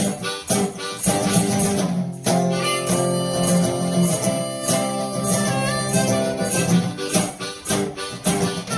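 One-man blues band: resonator guitar played with a Hohner harmonica and a foot tambourine keeping the beat. About two seconds in, the tambourine stops for a few seconds while guitar and harmonica notes are held, then the beat comes back.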